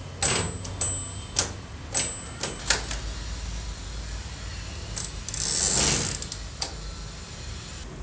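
Royal manual typewriter's carriage mechanism being worked: a run of sharp clicks roughly every half second, then a longer sliding rush about five to six seconds in as the carriage travels along its rack, and one last click.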